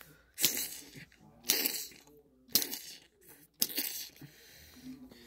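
Four sharp, noisy hits about a second apart, each dying away quickly: toy figures being struck repeatedly against each other on a carpet.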